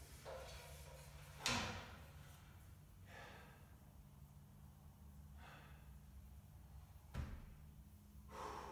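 Two sharp knocks of wood boards being fitted against a wall, the first about one and a half seconds in and a heavier one near the end, with faint puffs of breath between them.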